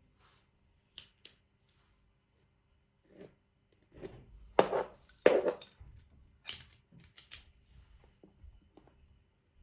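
Hand tools and metal parts being handled and worked, a string of sharp clicks and knocks. There are two quick clicks about a second in, then a busier run with the two loudest knocks around the middle, then a few fainter clicks.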